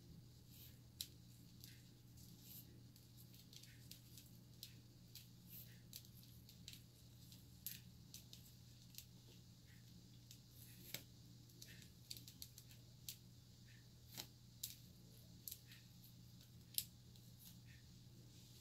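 Faint, irregular sharp clicks and ticks, a few a second, from hands with long nails working at micro box braids, over a low steady hum; one louder click near the end.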